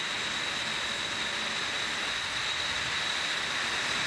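Steady hiss of steam jetting from hoses rigged along a tanker's sides, with a faint thin whistle held under it.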